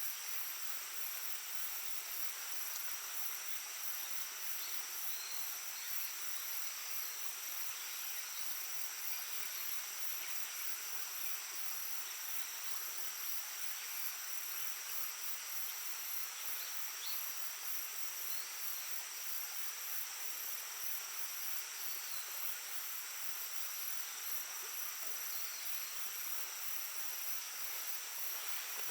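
Babbling brook running steadily under a continuous high, shrill chorus of insects such as crickets.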